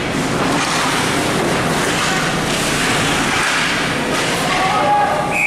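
Steady crowd and rink din from a hockey game, with a sharp single-tone whistle starting near the end.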